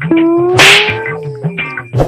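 A loud slap across the face about half a second in, laid over a held tone that rises a little and then sinks, with background music running underneath.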